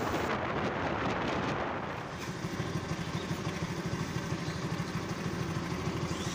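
Motorcycle riding with wind rushing over the microphone, then about two seconds in a motorcycle engine idling with a steady, pulsing low note.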